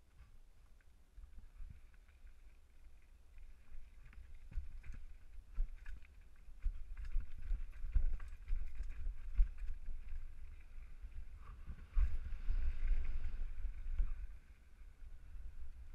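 All-mountain bike riding fast down a rocky gravel trail: tyres on gravel and the bike clattering over bumps in many short knocks, with wind rumbling on the helmet camera's microphone. It gets louder a few seconds in and is loudest near the end.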